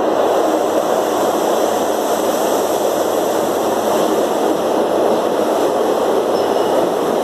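InterCity 125 High Speed Train pulling out of the station, its Mark 3 coaches moving past close by with a loud, steady running noise of wheels on rail and the power cars' diesel engines under power.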